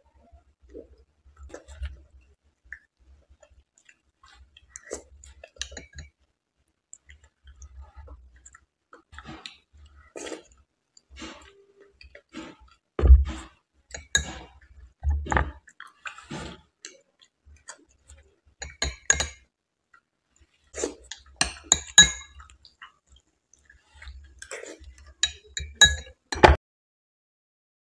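A metal spoon scraping and clinking against a small glass bowl, several strikes ringing with a short glassy chime. Between them come chewing and wet mouth sounds, and one dull knock about halfway through.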